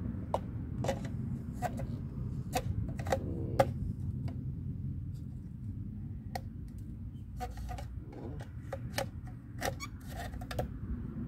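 Irregular clicks and knocks of solar tiki torch parts being handled and fitted together by hand, over a low steady rumble.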